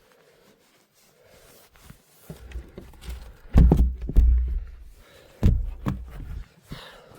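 Footsteps through deep snow: a run of heavy, dull steps in two clusters in the second half.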